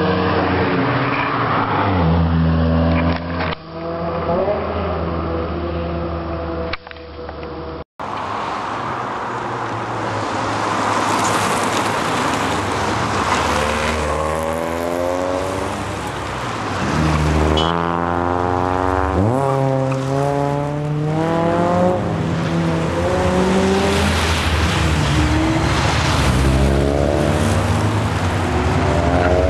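Honda Accords accelerating past one after another, each engine revving up with a climbing pitch and then falling away as the car goes by. One car near the middle revs sharply higher than the rest.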